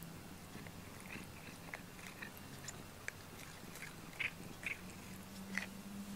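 A cat biting and chewing on a rubber grooming brush: a string of small, irregular clicks as its teeth catch the rubber bristles.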